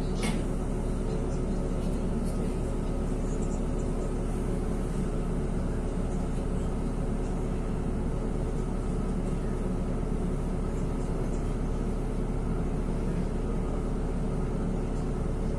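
Steady engine drone and cabin hum heard from inside a NefAZ 5299 city bus as it idles and creeps forward slowly in traffic. A short click sounds just after the start.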